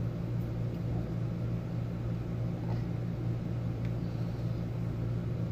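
Steady low hum of a running motor or fan, unchanging throughout.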